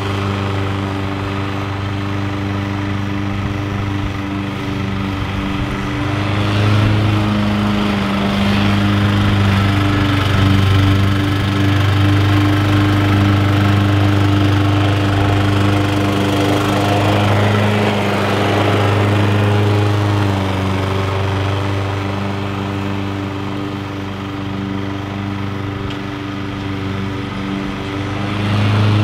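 Bob-Cat 21-inch commercial walk-behind mower's engine running steadily while mowing grass, its hum shifting slightly in pitch a few times.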